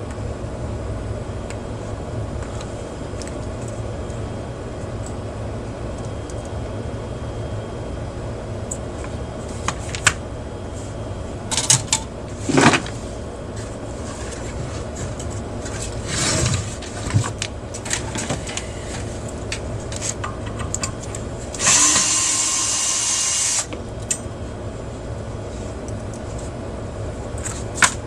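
Electric screwdriver run in one burst of about two seconds near three-quarters through, amid scattered clicks and clatter of screws and metal chassis parts being handled, over a steady low hum.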